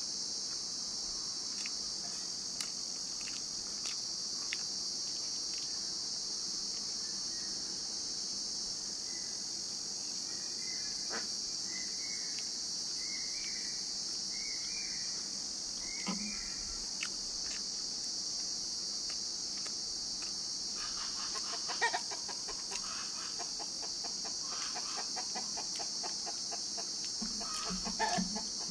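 Steady high-pitched insect drone, with a run of short chirping calls about halfway through and a spell of clucking near the end. Scattered faint clicks come from eating by hand.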